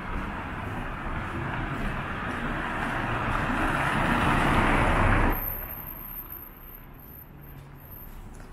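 A Hyundai compact sedan driving past close by: its tyre and engine noise swells as it approaches, then drops off abruptly about five seconds in as it goes by.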